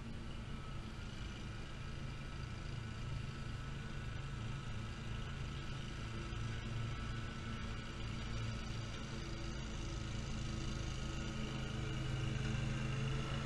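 Great Dane Super Surfer stand-on mower engine running steadily, growing gradually louder as the mower comes closer.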